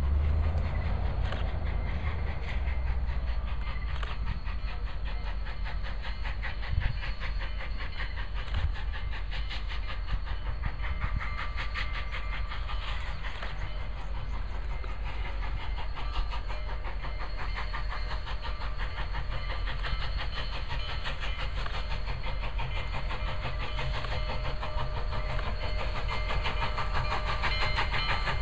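Union Pacific 844, a 4-8-4 steam locomotive, approaching at speed with its train. Its running sound is a continuous rumble and rapid beat that grows louder near the end as the engine nears.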